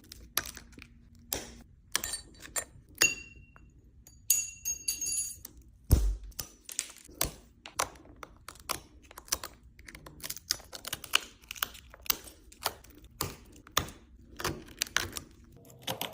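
Shattered iPhone back glass being cracked and chipped away with a metal tool: irregular small clicks, taps and crunches, with a heavier knock about six seconds in and a few brief ringing pings near the start.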